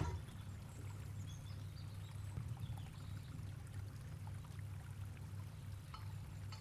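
Liquid pouring or trickling faintly over a steady low hum, with a few small clicks.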